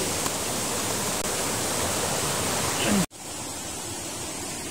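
Steady rush of falling water from a 100-foot waterfall. About three seconds in it cuts off suddenly and gives way to a quieter, even flow of shallow water running over pebbles.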